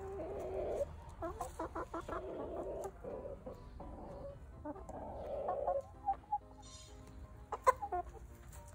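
Backyard chickens clucking in several short runs of low, murmuring clucks while they forage. A sharp tap sounds near the end.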